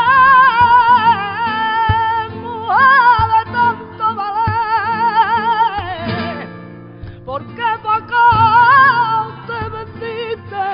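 A woman sings a fandango de Huelva in the flamenco style, in long, wavering, ornamented phrases over two flamenco guitars strumming. Her line slides down and breaks off about six seconds in, then resumes a second later.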